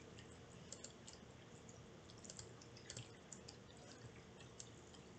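Near silence: room tone with a few faint computer clicks scattered through it.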